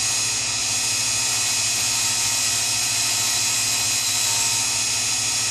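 Grinding wheel of a Sherline-based cam grinder spinning while a diamond dresser is fed across its face, a steady high-pitched hiss and whine. The diamond is trueing up the wheel.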